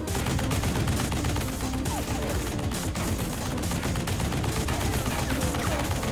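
M2 Browning .50-calibre heavy machine gun firing one continuous burst of rapid, separate shots, starting abruptly.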